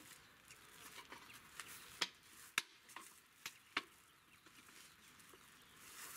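Slatted wooden folding rack being unfolded: its wooden shelves and frame clack and knock as they swing open and drop into place, several sharp knocks with the loudest four close together in the middle.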